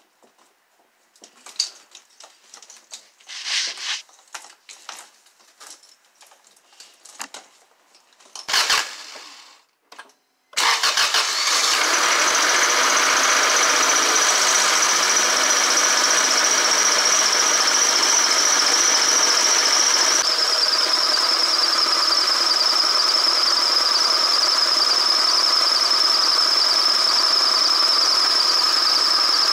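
Wiring harness and plastic loom being handled and pushed into place, scattered clicks and rustles. About ten seconds in, the 2001 Acura Integra's four-cylinder engine is running at idle, steady, with a high-pitched whine over it that drops slightly in pitch partway through.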